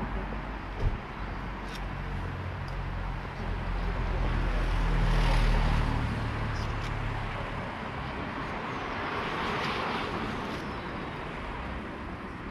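A van driving past on the street, its engine and tyre noise swelling to a peak midway and then fading, with a second, smaller swell later on. A single sharp knock about a second in.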